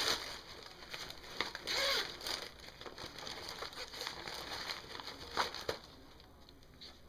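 Tissue paper crinkling as it is pushed into a fabric boot bag, loudest near the start and about two seconds in, then lighter rustling of the bag as its zippered pocket is opened, with two sharp clicks about five and a half seconds in.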